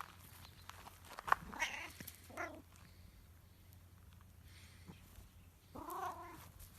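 A domestic cat meowing: a few short calls early on and one longer, wavering meow near the end, with a sharp click a little over a second in.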